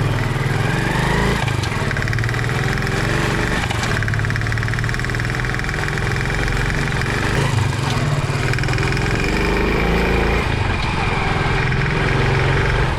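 Honda CD 70's small single-cylinder four-stroke engine running with a rapid knocking tick, which the owner puts down to low-octane fuel.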